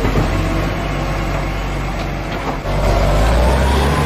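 Heavy truck engine running with a steady low rumble that gets louder about two-thirds of the way through, joined by a faint rising whine.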